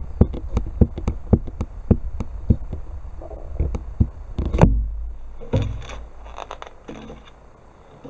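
Handling noise: a run of light clicks and taps, a few a second, then one heavier knock about four and a half seconds in, followed by softer rustling.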